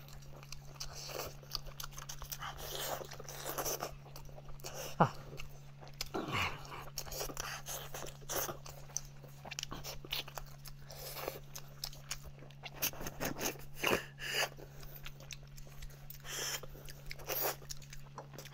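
Close-up eating sounds of spicy braised goat leg bone: biting and chewing the meat with wet smacking, and sucking and slurping the marrow from the bone end. Two short falling squeaks come about five and six seconds in.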